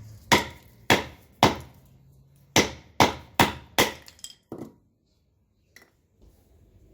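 A baton striking the spine of a Ganzo 440C-steel folding knife to split a large piece of wood. About eight sharp knocks come roughly half a second apart, with a short pause after the first three, and the strikes stop a little past halfway through.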